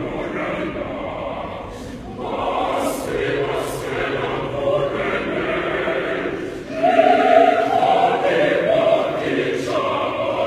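A choir singing in sustained, held chords, with short breaths between phrases; the voices swell to their loudest chord about seven seconds in.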